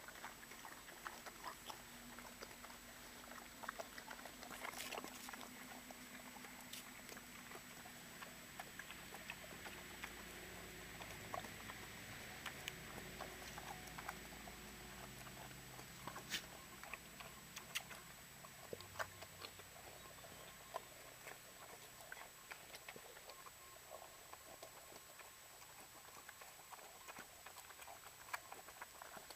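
Pot-bellied pigs munching carrot pieces and scraps off the grass: faint, irregular crunching and clicking of chewing and rooting.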